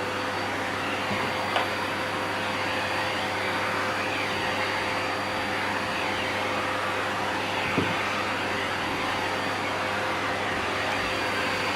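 Vacuum cleaner running steadily, a constant rushing hum with a steady whine in it. Two small knocks come through about one and a half seconds and about eight seconds in.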